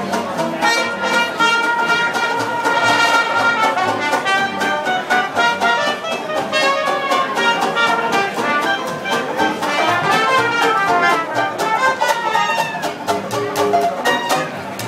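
Small live traditional jazz band playing an upbeat tune, a trumpet leading over a walking upright bass that keeps an even beat.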